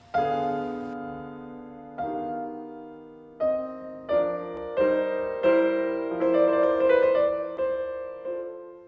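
Slow solo piano music: a series of struck chords and notes, each ringing and fading, coming faster after the first few seconds and ending on a held chord.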